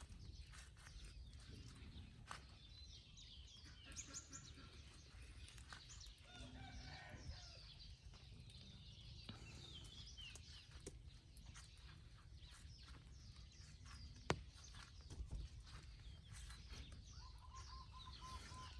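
Faint rural ambience: small birds chirping in short high calls, with chickens clucking now and then and a single sharp click about two-thirds of the way through.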